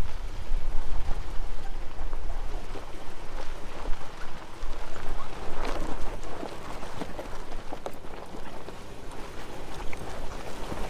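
Off-road SUV crawling through a rocky creek crossing. Water splashes and spatters around the tyres and stones knock under them, over a steady low engine rumble.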